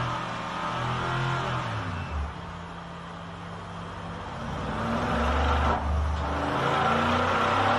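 Mercedes-AMG M157 5.5-litre twin-turbo V8 running hard on an engine test bench, its revs easing and dropping quieter, then climbing louder again from about five seconds in with a brief dip near six. The turbocharger and exhaust manifold are glowing red hot: the engine is under heavy load.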